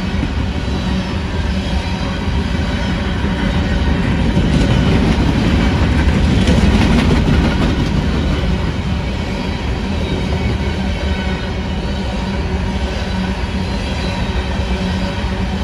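Coal hopper cars of a freight train rolling past at speed: a steady rumble and rattle of steel wheels on the rails, swelling to its loudest about six to seven seconds in.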